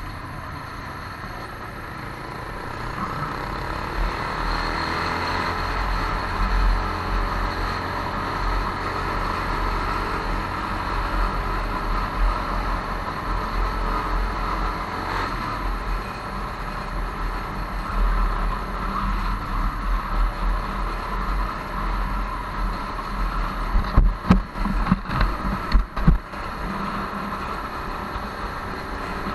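Motorcycle riding slowly through town, its engine running steadily under a rushing noise, getting louder a few seconds in. A cluster of sharp thumps comes about four-fifths of the way through.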